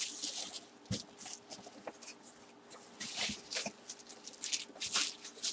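Scattered rustling and a few light knocks of things being handled, with no voice.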